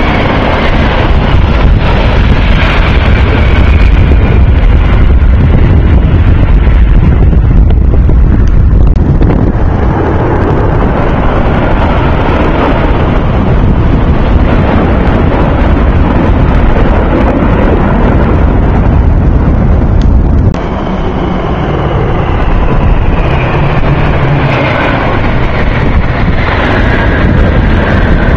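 Jet engines of a low-flying military formation, a large four-engine jet with fighter jets, rumbling overhead, with high engine whines that fall in pitch as the aircraft pass. Wind buffets the microphone heavily, and the sound cuts abruptly to a slightly quieter level about two-thirds of the way through.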